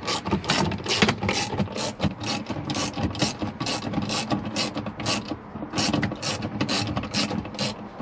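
Socket ratchet wrench clicking in quick, even back-and-forth strokes, about three a second, as it turns the handbrake cable adjuster nut to take up the slack in new handbrake cables.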